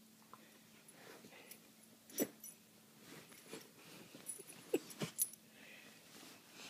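A dog nosing and pushing bedding over a buried bone: soft rustling of sheets and duvet with a few short sharp sounds from the dog, the loudest about two seconds in and several close together around five seconds in.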